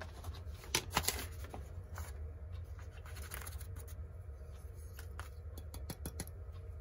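Scattered light clicks, taps and scraping from hands handling a clock case's broken glass and its metal glass frame, with the sharpest clicks about a second in and a short scratchy stretch near the middle.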